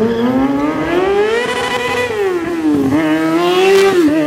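Sport motorcycle engine revved hard and high. Its pitch climbs, falls back, climbs again, then drops sharply about four seconds in.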